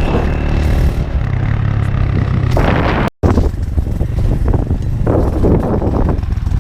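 Motorcycle engine running with a steady low hum. The sound cuts out abruptly for a split second about three seconds in, then the engine continues.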